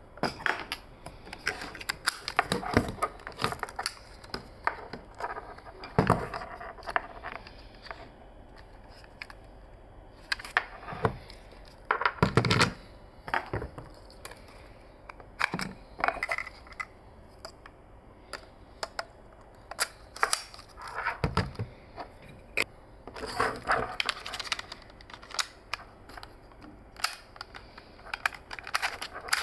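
Hands handling a Sony QX1 lens-style camera and its ADP-FSK1 articulating mount: scattered clicks, snaps and light knocks of small plastic camera parts being opened, fitted and latched, with rubbing between them. A few louder knocks come in clusters about 6, 12 and 21 seconds in.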